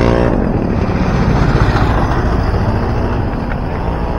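Motor vehicle noise: a steady low rumble, with a brief pitched engine note at the very start.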